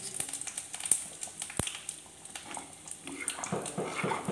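Thick greens-and-lentil kootu crackling and bubbling lightly in an aluminium pressure-cooker pan, with one sharp click about one and a half seconds in. From about three seconds in, a steel ladle stirs it in quick, wet strokes, about four a second.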